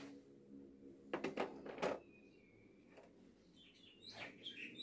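Faint birds chirping, with a thin whistle in the middle and a run of chirps near the end. A few short knocks come between about one and two seconds in, and these are the loudest sounds.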